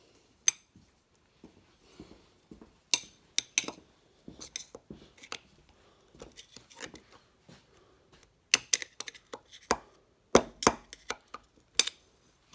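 Sharp metallic clicks and clinks, irregular and coming in clusters, as a thin steel snap ring is worked into its groove in the steel drum of a John Deere 310D reverser forward clutch pack. The loudest clicks come near the end.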